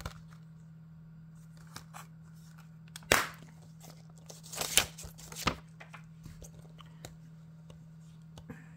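Plastic Blu-ray case snapping open with a sharp click about three seconds in, followed by rustling and clicks as the case and its paper digital-code insert are handled. A low steady hum sits underneath.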